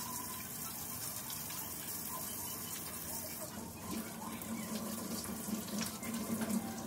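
Kitchen faucet running into a stainless sink while hands are washed under the stream. About halfway through, the sound of the running water changes and grows a little louder.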